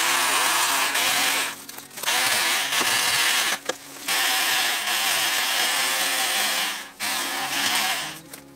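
VOLTAGA battery-powered electric pole chainsaw running in four bursts with short pauses between them as it cuts regrowing bamboo low to the ground.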